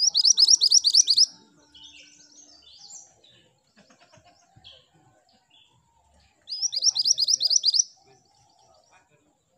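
Minivet ('mantenan gunung') singing: two quick runs of about eight high, rising notes each, the second about six and a half seconds in, with softer scattered chirps between.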